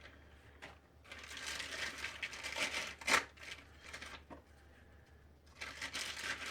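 Packaging wrap crinkling and rustling as it is unwrapped from a rifle scope, in irregular handling bursts with one sharper crackle about three seconds in and a short lull before the rustling resumes.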